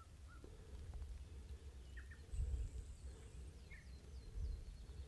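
Faint songbirds calling: a few short chirps, a thin high whistle, and near the end a quick run of short falling notes, over a low rumble on the microphone.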